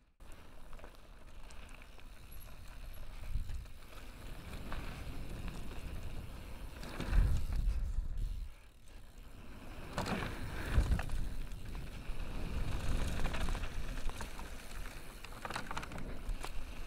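Mountain bike descending a dirt and gravel trail from the rider's helmet: tyre noise and rattling over the rough ground with wind rush on the microphone. Heavier thumps and clattering come about seven and ten seconds in, around a wooden slatted ramp.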